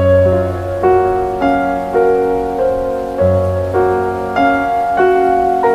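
Background instrumental music: a melody of evenly paced notes over held low bass notes.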